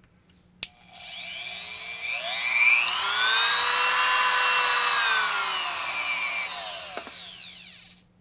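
A click of the switch, then a handheld rotary tool's motor whining. Its pitch rises as it speeds up to full speed, then falls as it slows, and it stops near the end.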